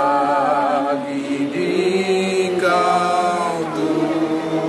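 Several voices singing a slow hymn together, with long held notes, some wavering with vibrato.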